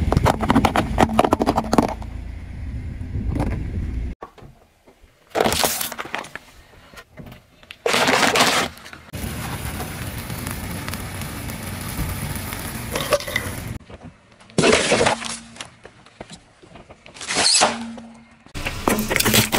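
A run of short cuts of a car tyre rolling over and crushing objects, with sudden cracks, crunches and pops: a pile of gummy sweets squashed at the start, a lit firework fizzing steadily for about four seconds midway, and more sharp cracks near the end.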